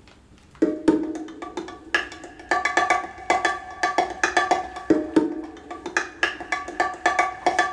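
Background music of quick struck percussion with pitched, ringing notes, starting about half a second in.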